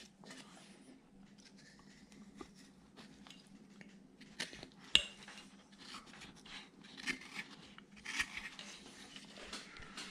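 Carving knife cutting and shaving into a small wooden figure: scattered short slicing and scraping strokes with a few sharp clicks, the sharpest about five seconds in, over a faint steady hum.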